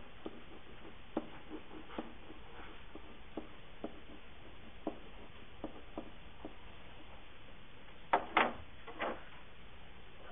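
Scattered faint clicks and taps of a stylus on a writing surface while handwriting, over a steady hiss, with a few louder scratchy knocks about eight to nine seconds in.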